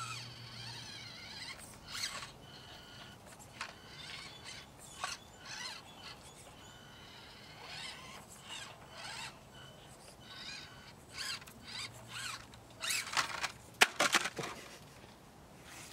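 Tiny Axial SCX24 crawlers driving over wooden boards: the small electric motors and gear drives whine, rising and falling with the throttle, while tyres and chassis click and knock on the wood. Near the end comes a quick cluster of sharp knocks, the loudest sounds here.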